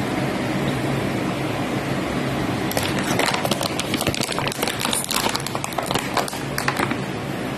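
Plastic toy packaging handled and crinkled: a dense run of crackles and clicks from about three seconds in, stopping about a second before the end, over a steady fan-like hum.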